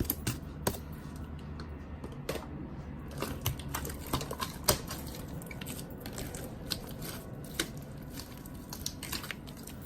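Large mass of slime being kneaded and mixed by hand, giving a steady run of irregular sharp clicks and pops.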